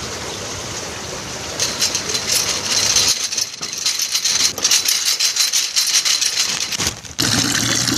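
Dense rattling and clinking of small hard objects, a rapid irregular run of clicks over a hiss, changing to a fuller, steadier noise about seven seconds in.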